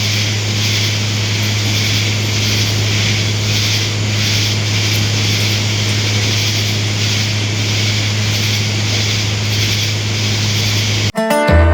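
A steady low mechanical hum under a constant hiss, unchanging until it cuts off abruptly near the end, when banjo music starts.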